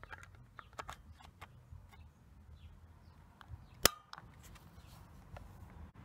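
Plastic battery cover on the back of a Sony TCS-300 cassette recorder being handled and pushed into place: a run of light plastic clicks, then one sharp snap a little under four seconds in as it latches.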